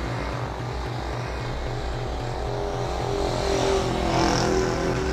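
Small motor scooter's engine running as it is ridden, a low even pulsing, with a higher hum joining about three seconds in.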